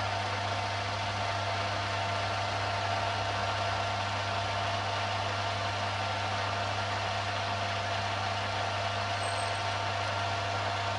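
Benchtop mini lathe running at a steady speed while turning a small suppressor baffle: a constant motor hum with steady whine tones over a hiss.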